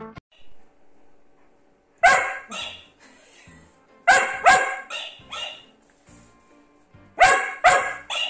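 A dog barking in short groups: two barks about two seconds in, a run of four around four to five seconds, and three more near the end.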